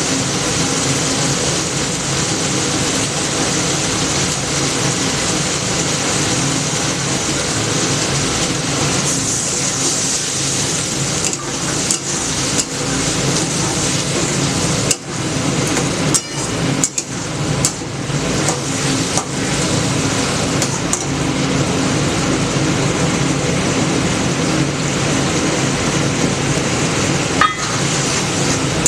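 Steady sizzling of food frying in a pan, over a constant hum. From about eleven seconds in, a spatula knocks and scrapes against the pan now and then.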